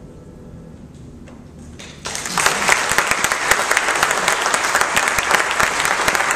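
Audience applauding: after about two seconds of hush, many people start clapping at once, a dense, steady applause at the close of a piece.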